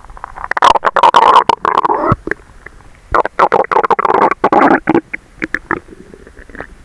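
Human stomach rumbling and gurgling while digesting a large meal, heard close to the belly. Two long bouts of crackly gurgles come one after the other, then a few short pops near the end.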